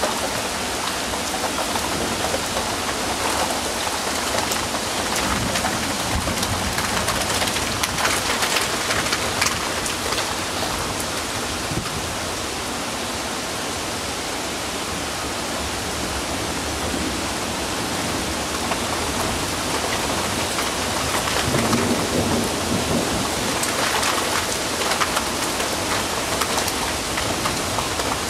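Heavy thunderstorm rain pouring steadily, with thunder rumbling; a rumble swells about three quarters of the way through.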